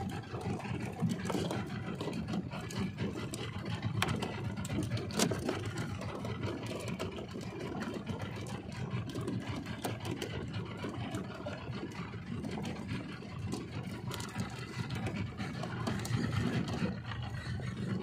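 Suzuki outboard motor running steadily at low trolling speed, with scattered light clicks and knocks.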